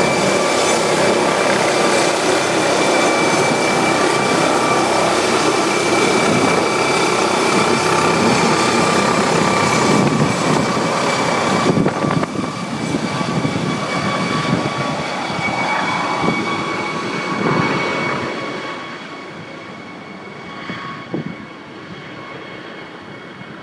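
Air ambulance helicopter running close by: a steady turbine whine over loud rotor and engine noise. About halfway through the sound begins to fade as the helicopter moves off after taking off.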